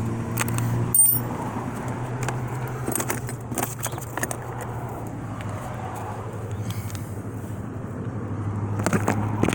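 Scattered light metallic taps and clinks as a chisel punch is tapped against a part of a 1978 Chevy Caprice tilt steering column to drive it out, the sharpest strike about a second in, over a steady low hum.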